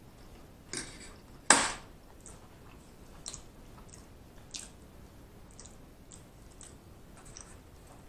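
Close-miked chewing with wet mouth clicks and squishes, the loudest stroke about a second and a half in, then softer clicks every second or so.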